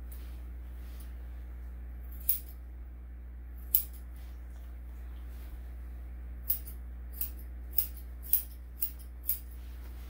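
Grooming scissors snipping a dog's coat: eight short, sharp snips, two spaced well apart and then six coming about twice a second in the second half, over a steady low hum.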